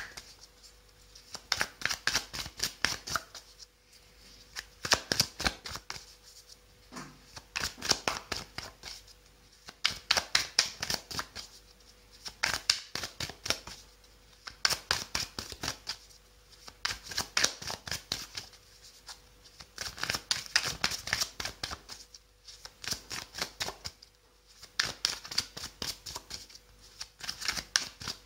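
A tarot deck being shuffled by hand: bursts of rapid papery card clicks, each lasting a second or two and coming about every two to three seconds with short pauses between.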